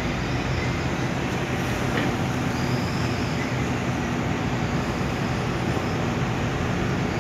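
Hitachi hydraulic excavator's diesel engine running steadily while the boom and bucket are worked down into a dirt pile.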